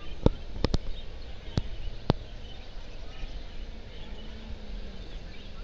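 Faint chirping of caged canaries over a steady hall hubbub, with five sharp clicks in the first two seconds.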